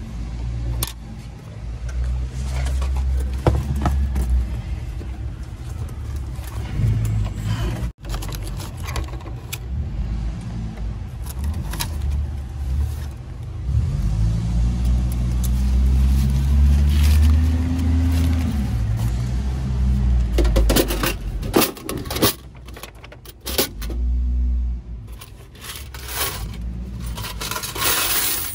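Keys jangling, with clicks and rattles of a vending machine's metal door and bill-validator cash box being opened and handled, over a steady low rumble.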